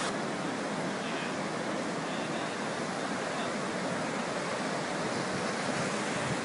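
Fast-moving floodwater rushing through a flooded street, heard as a steady, even rush of water.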